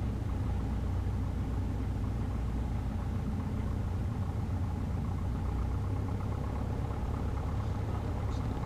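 Cessna 150's four-cylinder Continental O-200 engine and propeller giving a steady drone, heard inside the cabin.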